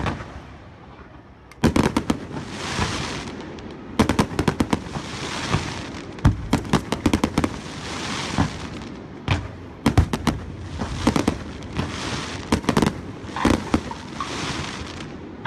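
Aerial fireworks bursting in quick clusters of sharp bangs, with a single bang right at the start. Each cluster is followed by the crackling hiss of glittering stars falling away.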